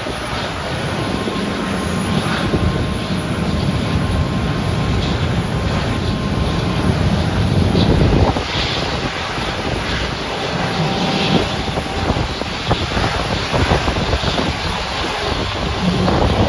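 Airliner engines running, a continuous rumbling roar with a faint steady whine that swells and eases, loudest about eight seconds in.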